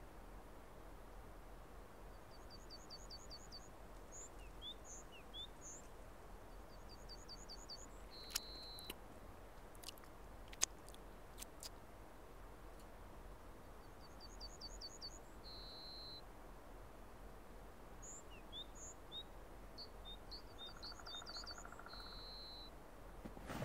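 A small songbird singing softly: quick runs of high notes, single notes and a short trill, the same phrase coming round twice, over a faint steady hiss. A couple of sharp clicks about eight and ten seconds in.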